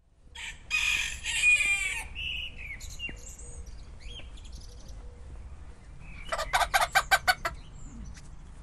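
Chickens: a rooster crowing about a second in, then a quick run of about eight clucks near the end.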